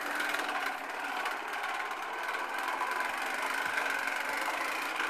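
Toy push lawn mower pushed over carpet, making a continuous, even mechanical noise.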